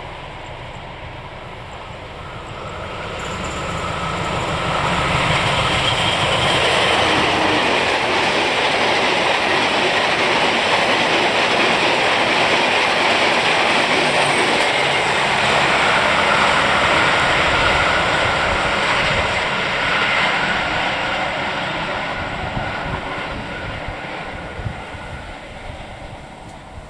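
A train passing at speed: its rumble builds over the first few seconds, stays loud for about fifteen seconds as it goes by, then fades away.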